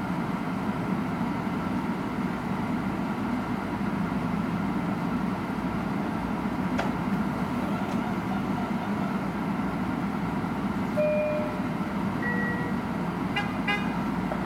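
Metro-North M7A electric commuter train standing at a station platform, its onboard equipment giving a steady hum. About eleven seconds in, two short chime tones sound a little over a second apart.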